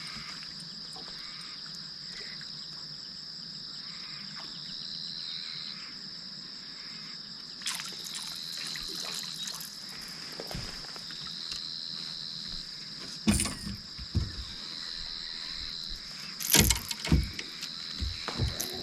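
Insects chirring steadily in a high, thin tone, with a second, slightly lower insect tone switching on and off every second or two. A few loud short thumps break in about two-thirds of the way through and again near the end.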